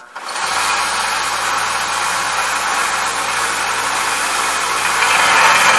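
Harbor Freight 1x30 belt sander switching on and coming up to speed, then running steadily with a motor hum and belt hiss. About five seconds in it gets louder and harsher as the cast brass butt plate is pressed to the belt to grind off the casting sprue.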